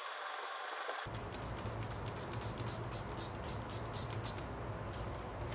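Hand scraping on steel for about a second, then a run of short hissing sprays from a trigger spray bottle onto the steel vise jaw plate, about three a second, stopping a little before the end.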